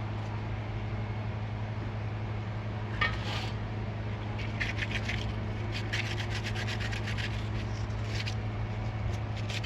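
Repeated hand rubbing or scraping strokes on a part, in quick runs of short rasps starting about three seconds in, over a steady low hum.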